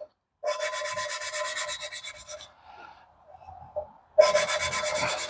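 Intake valve being hand-lapped against its seat in a cast-iron cylinder head with valve grinding compound, the lapping stick spun rapidly back and forth between the palms: a fast, rhythmic gritty rasping in two spells with a short break between them. This grinding sound is normal for lapping.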